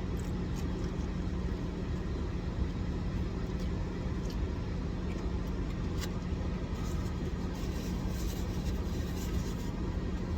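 Steady low rumble with a constant hum, typical of a car engine idling as heard from inside the cabin. Small clicks and rustles from eating and handling food sit on top, more of them a few seconds before the end.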